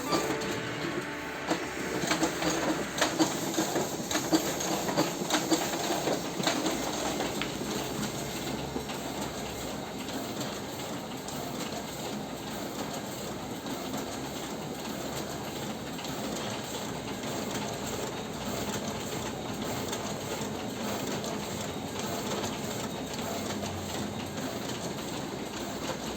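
Ricoh SR3110 finisher running with a steady mechanical clatter, with many sharp clicks in the first several seconds.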